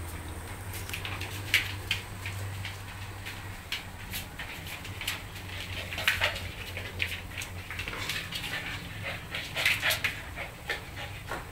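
A Siberian Husky puppy and a German Shorthaired Pointer play-fighting on a tile floor: irregular scuffling with claws clicking and scrabbling on the tiles, over a low steady hum.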